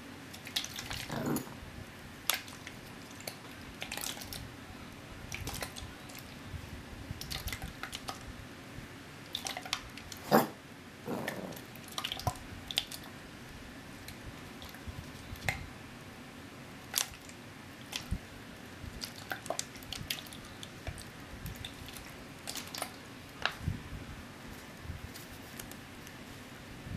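Plastic water bottle handled and swung about, giving scattered light clicks, ticks and crinkles of the plastic, with one sharper knock about ten seconds in, over a faint steady hum.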